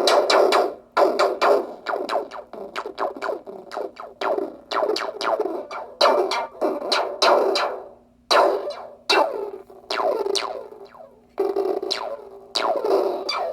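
Small electronic synthesizer noise box playing a stream of short blips, each one sliding quickly down in pitch, in an uneven rhythm of several a second with a couple of brief pauses.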